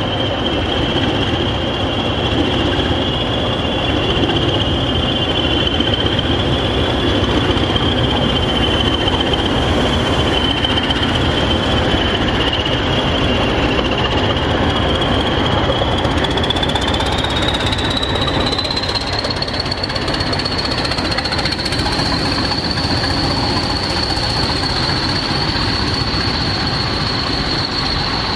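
A pair of Class 20 diesel locomotives with English Electric eight-cylinder turbocharged engines running as they move past, a heavy clattering engine note under a high turbocharger whistle. About two-thirds of the way through, the whistle climbs in pitch and then holds steady.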